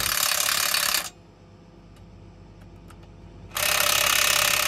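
A handheld cordless power tool runs in two bursts against a combine's axle hub: about a second at the start, then about two seconds more from around three and a half seconds in, with a few faint ticks in the pause between.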